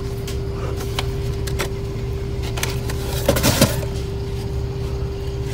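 Car idling at a standstill, heard from inside the cabin: a steady low rumble with a steady hum over it. A few light clicks, and a short louder scuffing noise about three and a half seconds in.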